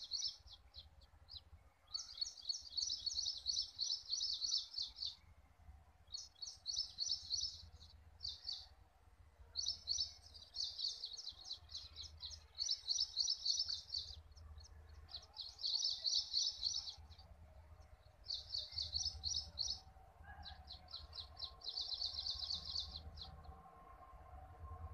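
A bird chirping in rapid, high trills, repeated in bursts of one to three seconds with short pauses between. Underneath is a low drone from the distant approaching diesel locomotive, which grows in the last few seconds.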